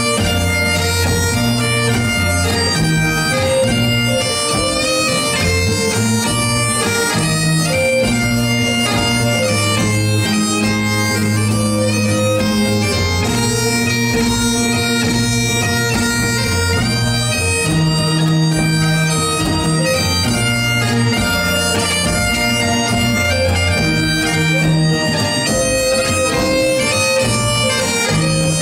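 Bagpipes playing a march melody together with a fiddle, over a band accompaniment with a moving bass line, in a steady live performance.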